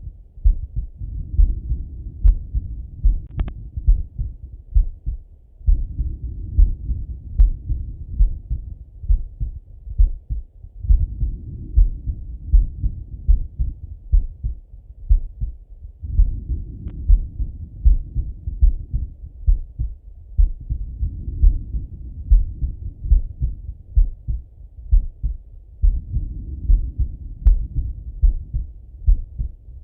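A man's heartbeat heard through a Littmann stethoscope on the chest, a steady run of low, muffled thumps. Slow breathing rises and falls over them in cycles of about five seconds.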